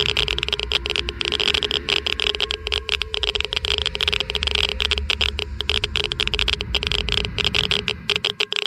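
Geiger counter clicking rapidly and irregularly, a dense crackle of counts that shows a high count rate. A steady low hum and rumble run underneath and drop away near the end.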